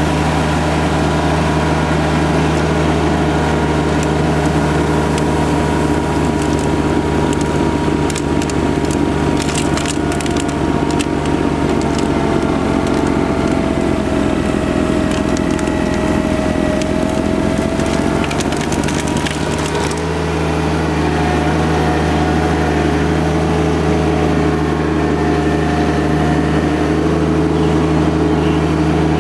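John Deere 2210 compact tractor's three-cylinder diesel running steadily while its front PTO-driven snowblower chews and throws snow, with scattered crunching ticks of snow going through the blower. About halfway through, the engine pitch sags briefly under the load and then recovers.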